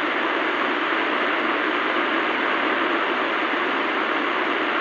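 CB radio speaker hissing with steady, even static, no voice coming through.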